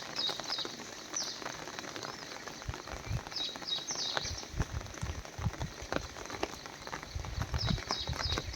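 Birds chirping in quick runs of short, high, downward-sweeping notes, repeated several times, over a background with faint scattered ticks and low rumbles.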